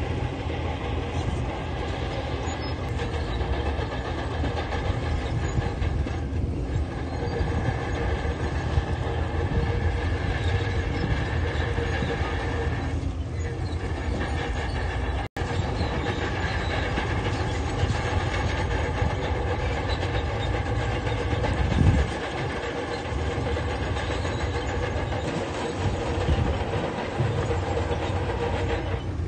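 Heavy diesel construction machinery running steadily, with a brief cut-out about halfway and a single loud low thump later on.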